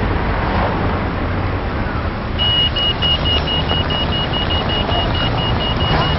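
Road traffic running, with a high, rapidly pulsing electronic beep starting about two and a half seconds in and continuing: a pedestrian crossing signal sounding as the lights stop the traffic.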